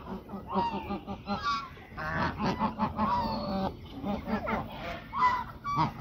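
Domestic grey geese honking, with many short calls overlapping.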